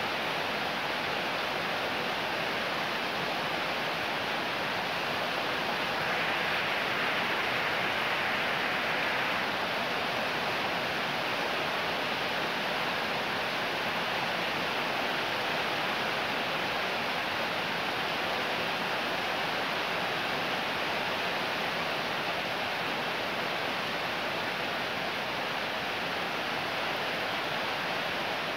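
Fairly heavy rain pouring steadily, a little louder for a few seconds about six seconds in.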